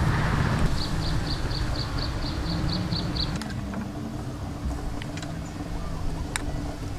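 A steady low motor-like drone, with a quick run of about ten high chirps over the first few seconds and a few light clinks of a metal spoon against a bowl later on.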